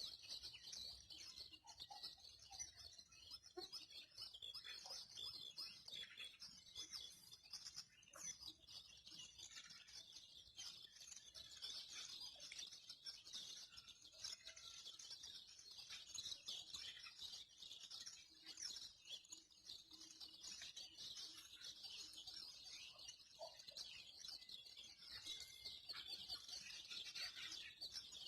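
Faint, continuous chirping of many small birds, a dense chorus that goes on without pause.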